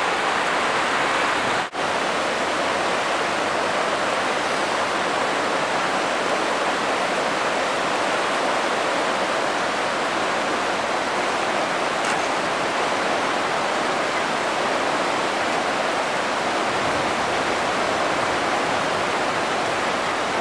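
Steady rush of fast-flowing muddy floodwater, an even noise with one brief break under two seconds in.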